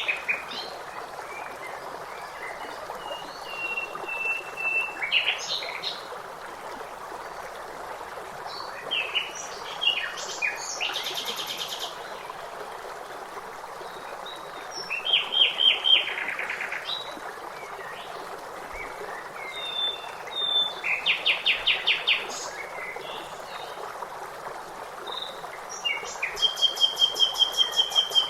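Songbirds calling over a steady rush of flowing water: fast rattling trills and short held whistles come every few seconds, loudest in the trills near the middle and end.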